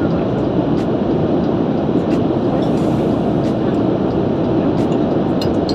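Steady cabin noise of a Boeing 787-9 Dreamliner in flight, an even, deep rush, with a few light clinks of a spoon against a china soup bowl.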